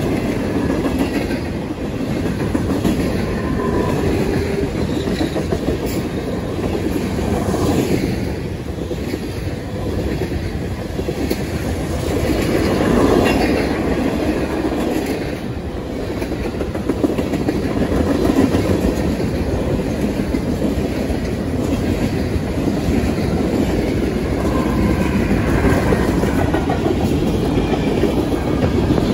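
Freight cars rolling past on the rails, a steady rumble with the wheels clicking and clacking over the rail joints.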